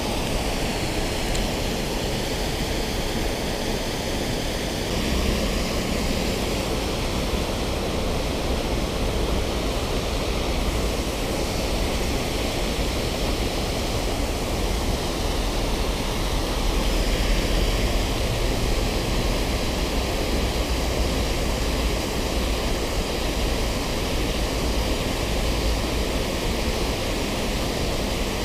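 Steady rush of river water pouring over a small concrete weir.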